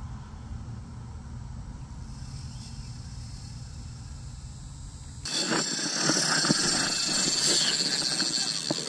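Low steady rumble of road traffic, then about five seconds in an abrupt switch to loud, close-up clicking and rattling of a spinning fishing reel being cranked.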